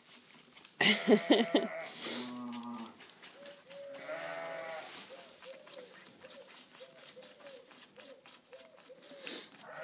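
Sheep bleating several times, one call deeper than the others. Then a lamb sucks at a rubber bottle teat in quick, regular pulls, about three a second.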